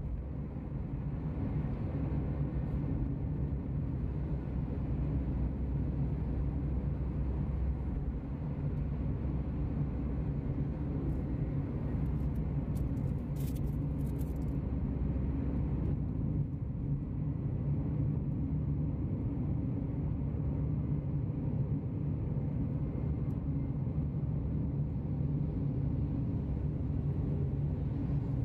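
Steady low rumble of a motor vehicle on the move, engine and road noise, with a few brief clicks around thirteen to fourteen seconds in.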